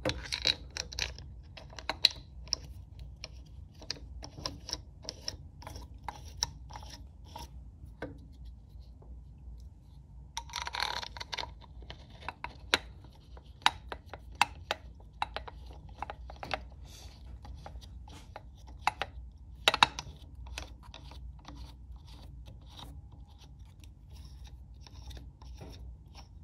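Metal handling clicks, taps and scrapes as the red mounting plate of a Feuling crankshaft runout tool is bolted and knob-tightened onto an aluminium Harley Evo engine case. Scattered sharp clicks, a short rustling scrape about ten seconds in, and one louder click about twenty seconds in.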